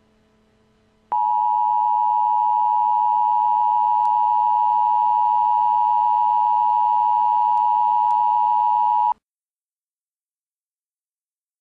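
Emergency Alert System attention signal: a steady, loud two-tone alert (853 and 960 Hz) that starts about a second in and cuts off sharply about eight seconds later. It signals that an emergency alert message follows.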